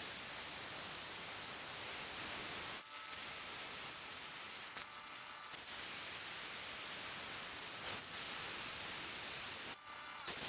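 Kearney & Trecker rotary head milling machine running during a counterboring operation: a steady hissing noise with a thin high whine that fades out about two-thirds of the way through.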